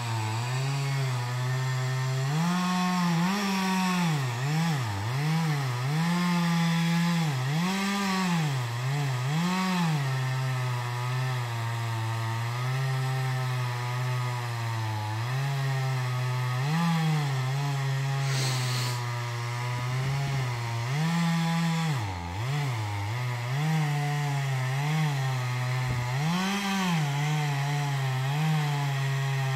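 Chainsaw running and cutting into a large beech, its engine pitch holding steady for stretches and repeatedly rising and dipping as the throttle and load change.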